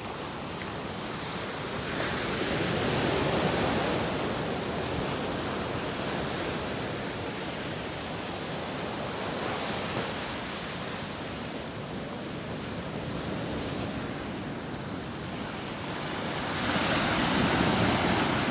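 Sea surf washing on the shore, a steady rush with two louder surges, one about two seconds in and one near the end.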